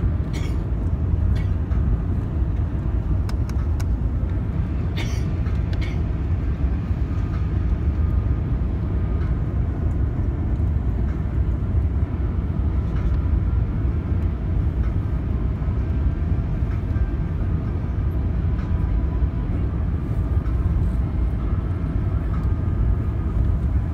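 Steady low roar of airflow and engine noise in the cabin of an Airbus A380-800 on approach with its flaps extended. A few faint clicks or rattles sound in the first several seconds.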